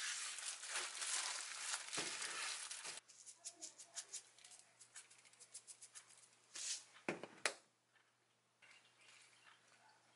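Thin disposable plastic gloves crinkling and rustling as hands press and roll a seaweed-wrapped gimbap, stopping abruptly about three seconds in. After that come scattered light clicks and a few sharp knocks, the loudest a little past the middle.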